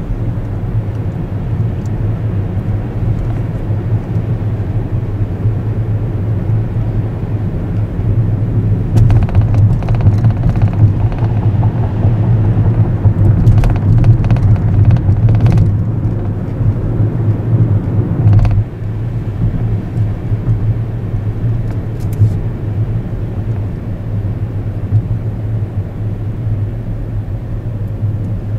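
Car rumbling steadily as it drives, heard from inside, with the low drone of engine and tyres. About a third of the way in it grows louder for several seconds, with scattered knocks and rattles, and a sharper knock near the middle before it settles back.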